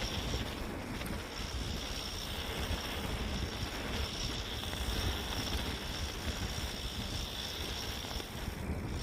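Wind buffeting the microphone of a camera riding on a mountain bike as it descends a dirt trail, with a steady low rumble from the tyres over the ground. A steady high hiss runs throughout.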